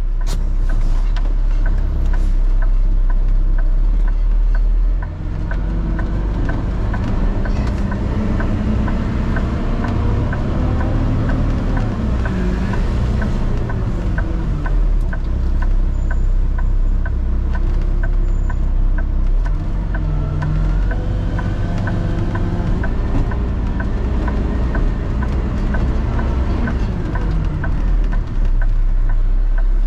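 A vehicle's engine running while driving, its pitch rising and falling as it speeds up and slows. A steady clicking ticks along at about one and a half clicks a second.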